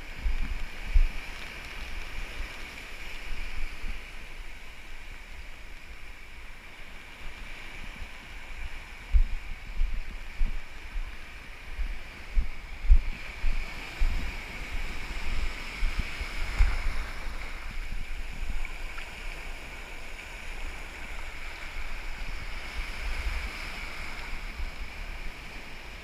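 Wind buffeting the microphone in uneven low gusts over the continuous hiss and wash of shallow surf running up the sand.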